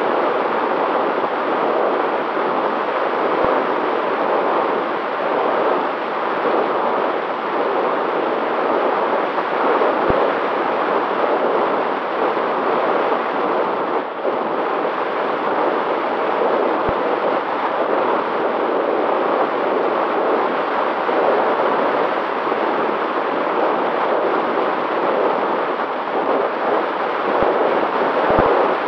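Steady rushing wind noise on an FPV aircraft's onboard camera microphone in flight, with a faint steady hum of the electric motor and propeller beneath it.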